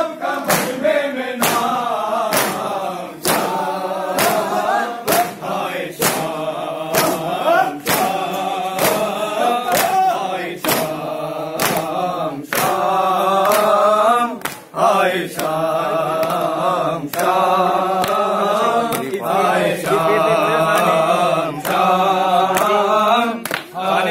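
Men chanting a Shia noha lament together in Urdu, with a steady beat of open-hand slaps on their chests (matam) keeping time, about one or two slaps a second. The chant and the slaps break off briefly about midway, then carry on.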